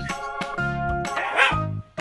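Jingly children's background music, with a short dog bark sound effect about one and a half seconds in, the loudest moment. The music drops out briefly just before the end.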